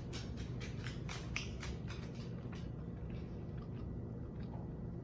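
Close-up crunchy chewing of a panko-crusted fried salmon croquette: irregular crisp crunches, thickest over the first two or three seconds and thinning out after, over a steady low hum.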